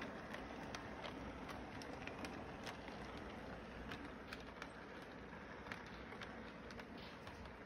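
Model electric train running along its track: a steady, faint running noise with scattered light clicks from the wheels on the rails.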